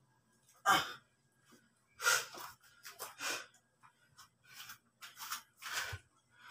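A man breathing hard after a set of push-ups: a series of short, loud, noisy breaths, about six of them, the first and loudest near the start.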